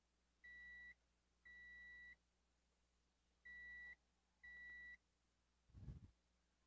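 Multimeter continuity buzzer beeping four times, each a short steady tone at one pitch, as the probes find a connection across capacitor pads on a graphics card. A soft low bump near the end.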